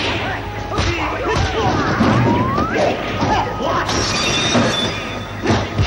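Kung fu film fight-scene soundtrack: a rapid run of punch and kick hit effects and objects smashing, with music underneath.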